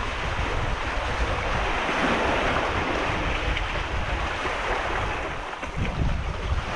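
Sea surf washing and foaming in among large boulders, swelling a couple of seconds in and easing off again, with wind buffeting the microphone as a low rumble.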